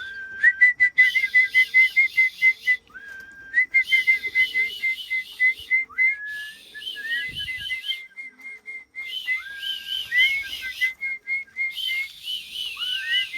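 A person whistling a repeated call to pigeons to draw them into the loft: each phrase is a rising slide followed by a quick run of short, even notes, repeated over and over.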